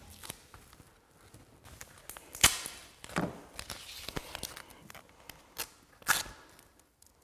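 Gaffer tape being pulled off the roll and torn while taping the corners of a cube of cardboard-framed filters, mixed with knocks from handling the filters. A string of sharp cracks and short rasps, the loudest about two and a half seconds in and again near six seconds.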